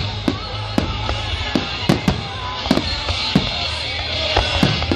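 Aerial fireworks shells bursting overhead: about a dozen sharp bangs at irregular intervals, with music playing over the display.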